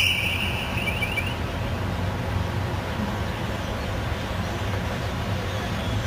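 The tail of a high LRAD bird-deterrent tone fades out in the first second or so, leaving a steady low engine rumble.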